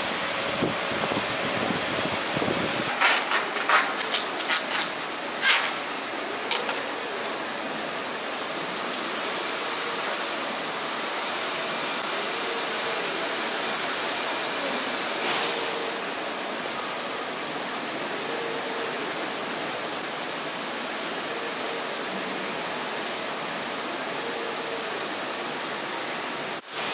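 Steady hiss of machinery or ventilation noise in a factory hall, with a cluster of sharp clicks and knocks a few seconds in and one more about halfway through.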